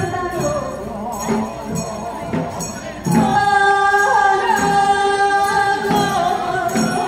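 Korean folk singers performing jaedam sori, singing with low drum strokes. About three seconds in, a long high note is held, louder, for roughly three seconds.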